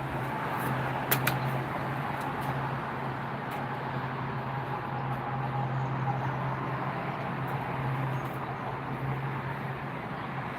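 A steady, low engine hum, with a few light clicks about a second in.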